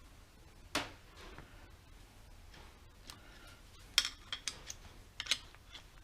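A few sharp clicks and taps: a screwdriver working a new timing belt onto the engine's pulleys. One click comes a little under a second in, then a quick cluster of ticks about four seconds in and a few more a second later.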